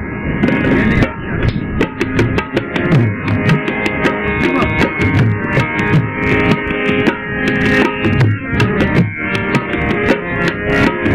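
Live ghazal accompaniment: a harmonium holds a melody over tabla playing a steady rhythm, with the tabla's low drum sliding up and down in pitch.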